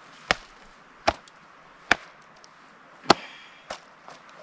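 A pair of homemade moccasins being whacked to knock the dirt off them: five sharp, separate knocks, the first three less than a second apart, the fourth the loudest.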